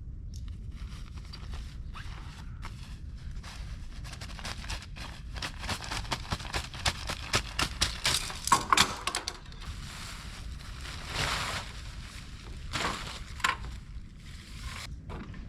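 Hands handling things: a run of clicks, rustles and scrapes, busiest around the middle, over a steady low rumble.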